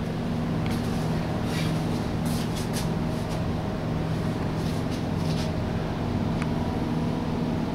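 Steady low mechanical hum made of several even tones, like engine or generator machinery, with a few brief soft hisses in the first half and a faint tick about six and a half seconds in.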